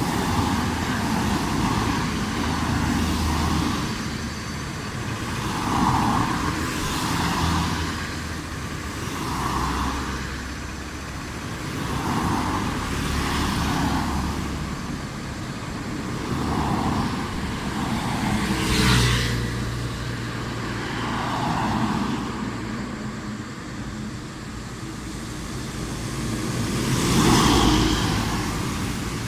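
Road traffic on a local street: cars passing one after another, engine and tyre noise swelling and fading. The two closest passes, the loudest moments, come about two-thirds of the way in and near the end.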